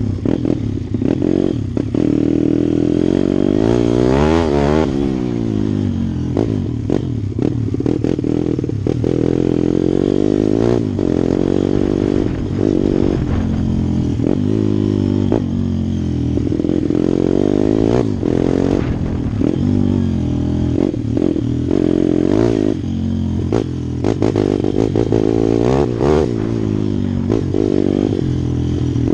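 Pit bike's small single-cylinder engine running hard, its pitch rising and falling over and over as the throttle is worked through the track's turns. Frequent knocks and rattles sound from the bike bouncing over rough dirt.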